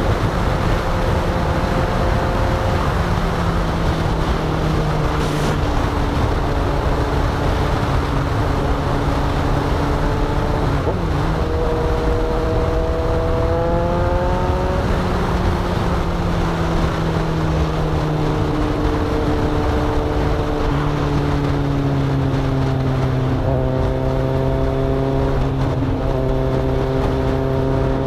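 Heavy wind buffeting on the camera's microphone at expressway speed, over the steady drone of a Kawasaki Ninja 1000's inline-four engine. The engine pitch rises for a few seconds about halfway through as the bike accelerates, then eases back down.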